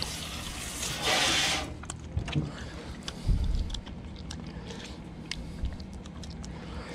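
Water hissing from a hose spray nozzle onto a fish on a cleaning table, with a harder burst about a second in before it cuts off. After that come a few low thumps and light ticks as the fish is handled and cut with a fillet knife.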